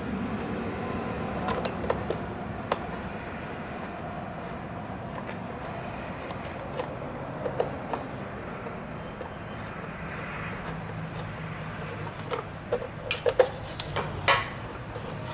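Screwdriver working the screws of a plastic cover, with scattered light clicks, then a cluster of louder plastic clacks near the end as the cover is handled, over a steady background hum.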